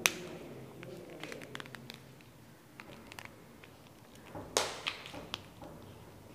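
Faint handling of a whiteboard marker and a few marker strokes on the board: scattered small clicks and taps, with a sharp click at the start and a louder cluster of clicks about four and a half seconds in.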